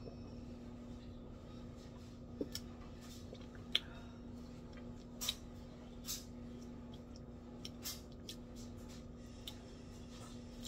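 Faint sips, swallows and scattered short clicks and lip smacks as a person drinks from a plastic bottle of sparkling flavoured water and tastes it, over a steady low hum.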